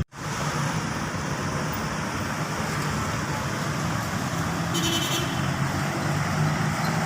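Steady city street traffic noise with vehicle engines running. A short high whine is heard about five seconds in.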